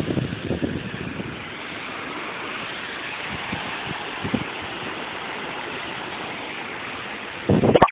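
Small ocean waves washing onto a sandy beach as a steady hiss, with wind buffeting the phone's microphone in short gusts during the first second and a louder gust just before the end.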